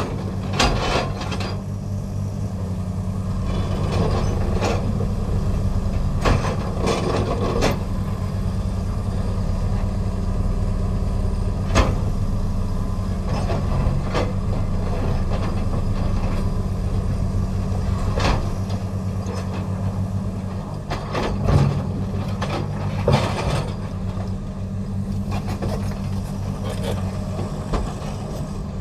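Komatsu PC300 excavator working an Xcentric Ripper into rock, a steady low machine drone throughout. Irregular sharp cracks and knocks of rock breaking and stones falling come every few seconds, the louder ones about twelve seconds in and around eighteen and twenty-two seconds.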